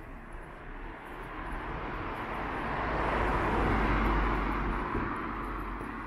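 A car driving past close by. The sound swells to a peak about four seconds in, then fades as the car moves off down the street.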